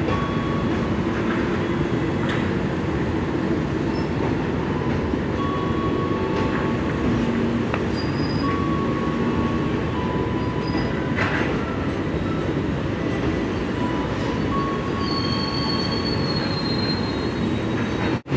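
Passenger train coaches rolling slowly over curved track and turnouts: a steady rumble of steel wheels on rail, with short high-pitched wheel squeals coming and going and a few sharp clacks.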